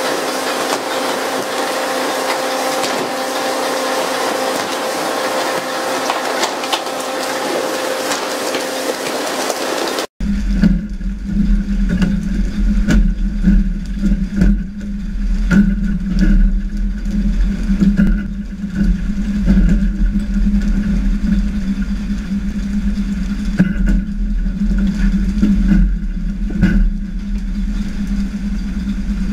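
Fishing boat engine running under a haze of wind and sea noise, with a steady hum. After an abrupt cut about ten seconds in, a deeper, louder engine drone continues, with scattered knocks.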